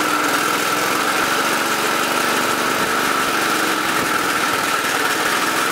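1920 Briggs & Stratton Flyer's single-cylinder, four-stroke Motor Wheel engine running steadily with rapid, even firing pulses, driving the buckboard along.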